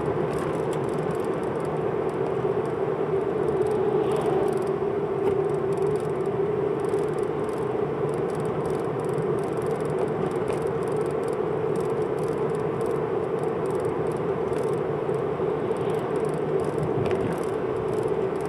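Steady engine drone and road noise inside the cabin of a car driving at a constant pace.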